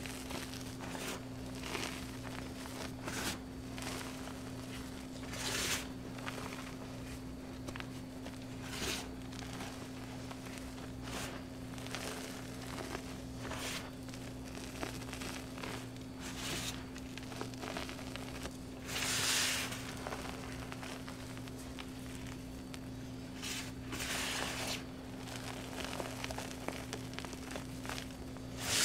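Hands squeezing, scooping and sifting loose powder from crushed blocks, giving a soft hissing crunch every second or two, loudest about two-thirds of the way through. A steady low hum runs underneath.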